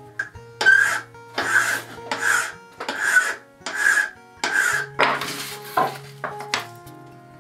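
Flat hand file scraping across the metal of a Stanley No. 1 hand plane in about seven steady push strokes, a little under one a second, which thin out near the end. Background music plays underneath.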